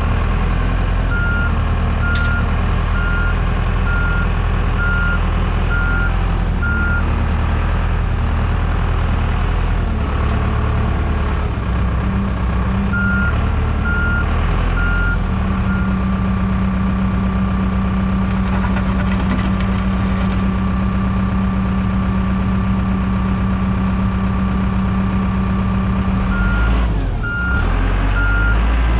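Diesel heavy equipment running steadily while its backup alarm beeps about once a second in three spells: for the first several seconds, briefly in the middle, and again near the end. In the middle, a steady higher hum holds for about ten seconds.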